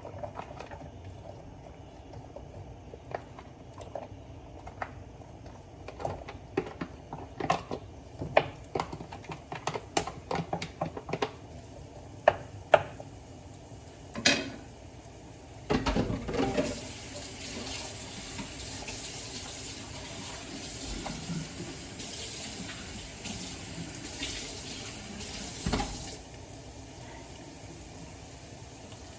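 Light clicks and knocks of kitchen utensils against cookware, scattered through the first half. Then a steady hiss for about ten seconds, which stops abruptly near the end.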